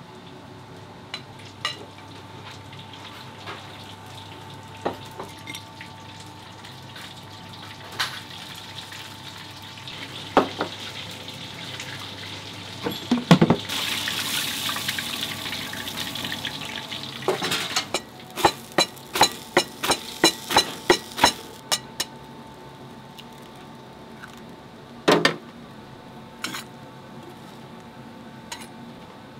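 Restaurant kitchen work: dishes, pots and utensils clinking and knocking now and then, with a few seconds of hissing about halfway through. Right after it comes a quick run of sharp knocks, about three a second for some four seconds, over a faint steady hum.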